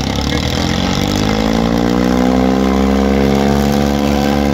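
Swaraj 855 FE tractor's diesel engine revving up over about a second and a half, then held at high revs, with a lower steady drone beneath.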